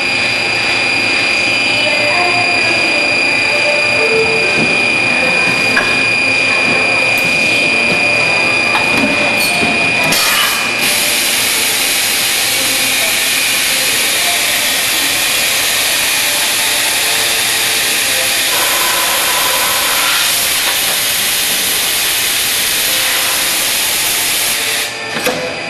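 Machinery for making 5-litre containers running with a steady high whine; about ten seconds in, a loud hiss starts and carries on until just before the end.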